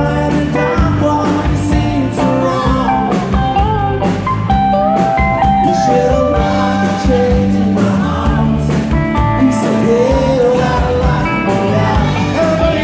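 Live rock band playing: electric guitars, bass and drums, with a man singing over them.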